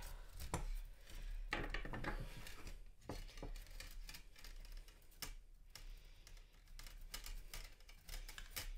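Stiff metal wire being pulled off a coil by hand, with light scraping and a scattered run of small clicks and ticks as the wire rubs against the coil.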